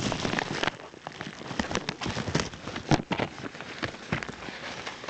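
Packaging being handled and unwrapped: irregular rustling and crinkling with many small clicks and scratches.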